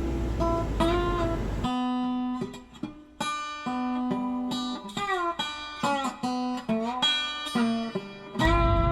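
Background music: a plucked guitar playing a slow melody of single notes with sliding, bent pitches. A low rumble underneath drops out about two seconds in and comes back near the end.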